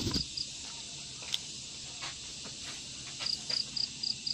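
Steady high-pitched drone of insects, with a chirp repeating about four to five times a second in two short runs, one at the start and one near the end. A bump of phone handling at the very start.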